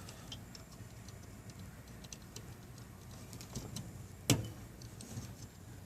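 Scattered small clicks and taps of a plastic starter relay and its wire connectors being handled and fitted onto a refrigerator compressor's terminals, with one sharper click about four seconds in.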